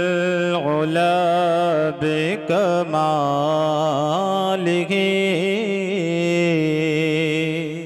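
A man singing a wordless, melismatic opening of a naat into a PA microphone: long held notes that waver and slide in pitch, over a steady low tone.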